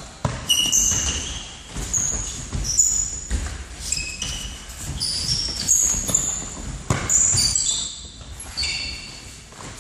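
Many short, high shoe squeaks on a hall floor from players running and turning in an indoor football game, mixed with thuds of the ball being kicked and bouncing.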